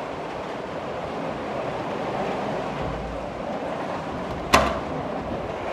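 Steady hiss of heavy rain pouring down, with a single sharp knock about four and a half seconds in.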